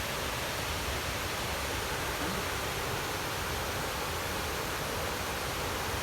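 Steady rushing of a waterfall's falling water, an even unbroken noise that keeps the same level throughout.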